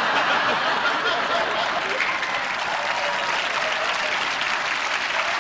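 Sitcom studio audience applauding steadily.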